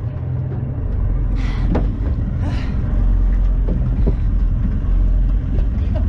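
Small boat's outboard motor running under way, a low rumble mixed with wind buffeting the microphone, growing louder about a second in. Two brief hisses come early in the rumble.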